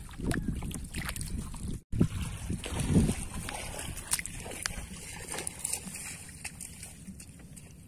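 Shallow water sloshing and splashing, with scattered small clicks and knocks from handling, broken by a brief dropout about two seconds in.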